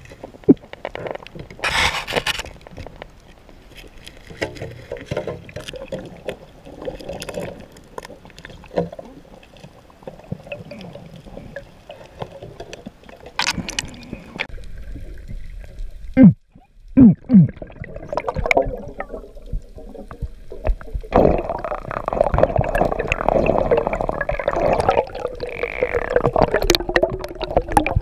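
Underwater sound picked up by an action camera in its waterproof housing: muffled water movement and gurgling with scattered clicks and knocks. The wash grows denser and louder about three-quarters of the way through.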